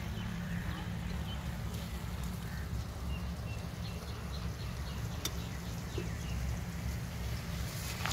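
Outdoor ambience: a steady low rumble with a few faint bird chirps about three seconds in and scattered soft clicks.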